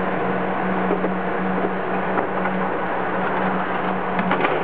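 Steady whirring hum of a laser cutter's ventilation fan running. A few light knocks about four seconds in as the cut plywood is lifted off the cutting bed.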